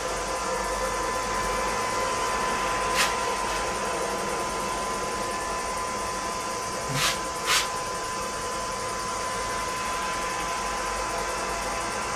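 Steady background noise with a thin, steady whine, broken by three short sharp clicks: one about three seconds in and two close together about seven seconds in.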